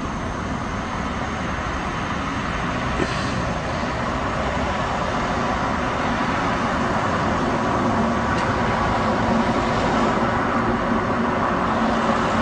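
Steady city traffic noise, a constant rushing hum that grows gradually louder.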